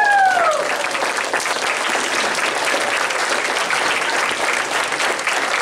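Audience applauding, with a high whooping cheer that falls in pitch and fades within the first second.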